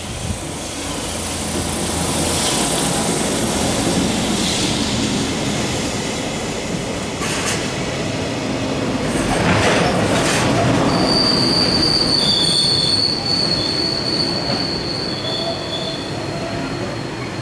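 Freight train headed by an EH200 electric locomotive, with its container wagons rolling past close by in a steady rumble of wheels on rail. From a little past halfway a high-pitched steel wheel squeal sets in and holds, with a second squeal tone sounding on and off.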